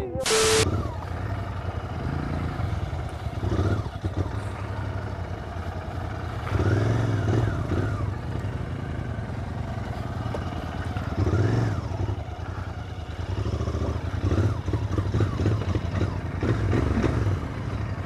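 A brief burst of TV-static glitch noise, then a Royal Enfield Interceptor 650's parallel-twin engine running as the bike rides over a rough dirt track. The throttle opens and closes several times, so the engine note swells and falls.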